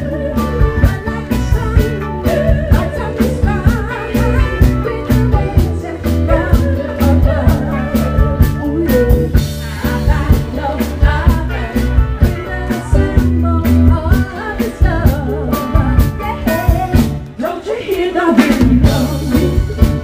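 Live band playing a Motown song: female vocals over a steady drum beat and bass.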